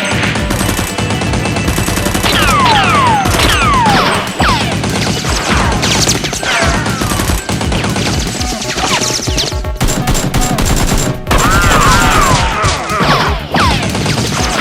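Rapid bursts of gunfire sound effects, machine-gun-like volleys over background music, with several falling whistling whizzes mixed in.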